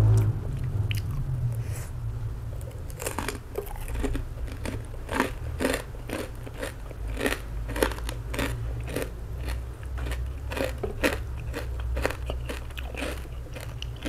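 Close-up chewing and crunching of crispy fried pork rind, a crisp crackle about twice a second from about three seconds in, over a steady low hum.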